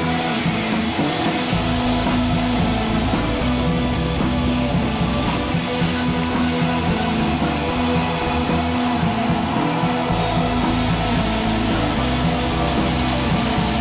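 Rock music with guitar at a steady level.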